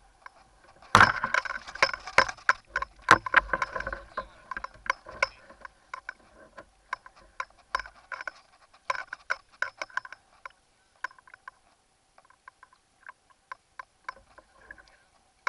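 A quick, irregular series of sharp clicks and knocks, densest and loudest between about one and four seconds in, then thinning out to scattered ticks.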